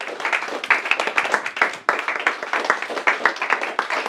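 Small group of people applauding, many quick overlapping hand claps.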